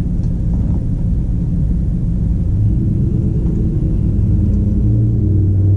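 Steady low mechanical rumble with a hum, level throughout, a little stronger in its lowest note over the last second.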